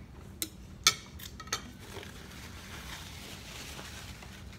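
Metal fork clinking against a dinner plate four times in the first second and a half, the second clink the loudest.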